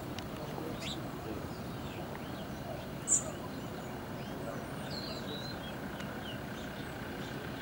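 Outdoor ambience: a steady low background rumble with small birds chirping now and then, and one short, sharp high chirp about three seconds in.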